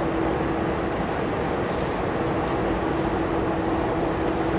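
Large passenger ferry's engines droning steadily across the water, with a steady hum running through it.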